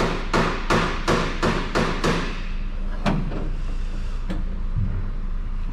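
Hammer blows in a workshop: a quick run of about seven strikes, roughly three a second, then two single blows, over a steady low hum.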